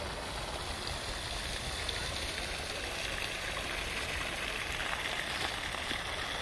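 Steady splashing of fountain water jets, a continuous even rush of falling water.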